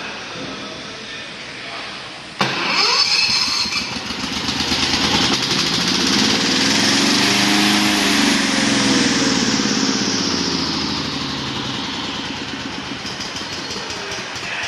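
Small engine of a tracked remote-controlled mower running. It cuts in suddenly about two and a half seconds in, its pitch rising over several seconds and then falling back.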